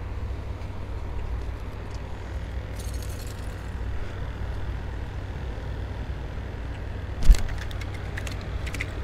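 Steady low rumble of wind buffeting a body-worn camera's microphone. A single sharp handling knock comes about seven seconds in, with a few light clicks after it.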